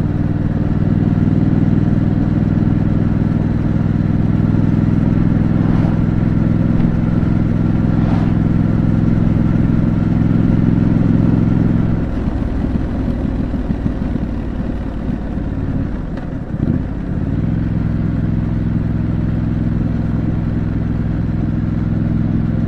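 Triumph Scrambler 900 parallel-twin with stock exhaust, running at a steady engine speed. About twelve seconds in the throttle comes off and the note turns uneven and quieter for several seconds, with a short blip. It then settles back into a steady, slightly quieter beat.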